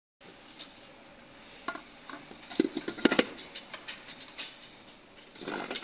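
Scattered metallic clicks and knocks from a replacement torque converter for a Nissan Patrol Y62's automatic transmission as it is handled and turned in the bell housing by gloved hands. The loudest knocks come in a quick cluster about three seconds in.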